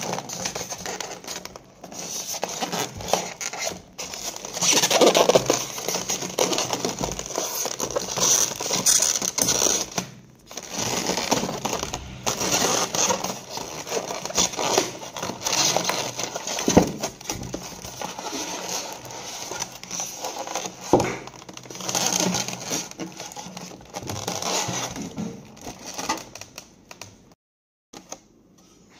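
Foam packing blocks scraping, squeaking and crackling as they are pulled apart and slid off a sewing machine, in irregular bursts with a few abrupt short gaps.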